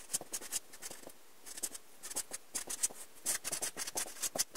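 Pen writing on a sheet of grid paper: many short scratchy strokes in quick runs, with brief pauses between words.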